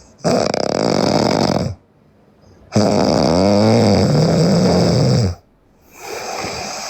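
A sleeping woman snoring loudly: three snoring breaths, the second the longest with a wavering pitch, the third shorter and quieter.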